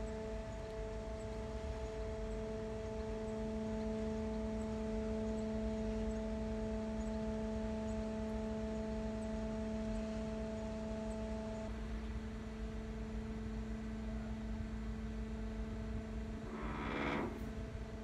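Powered sluice machinery of an automated canal lock humming steadily as it closes the sluices on the lower gates, a steady pitched drone whose higher tones drop out about two-thirds of the way through. A brief louder rattling noise comes near the end.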